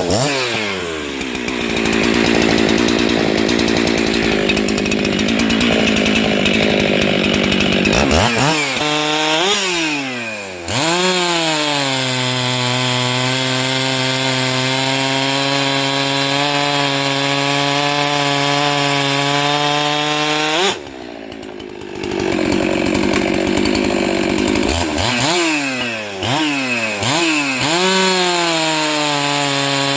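Husqvarna two-stroke chainsaw with a 20-inch bar and chain, cutting wood under load. Between cuts it revs up and down, runs at a high steady pitch for about ten seconds, drops off briefly, then cuts again and revs back up to a steady high pitch near the end.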